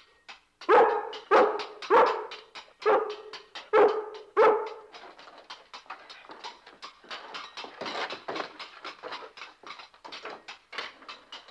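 A rough collie barking six times in quick succession, standing up against a wall, followed by a quieter, rapid, irregular clatter.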